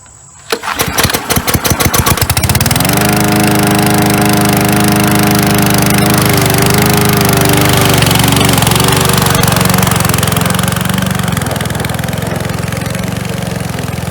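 PowerSmart DB2194SR lawn mower's 170cc gas engine starting about half a second in, firing unevenly for a couple of seconds, then picking up speed and settling into a steady run.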